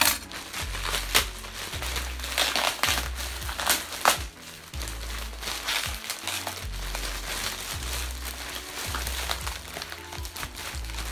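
Thin plastic mailer bag crinkling and crackling as it is handled and pulled open by hand, with many short, sharp crackles. Background music with a steady bass line plays underneath.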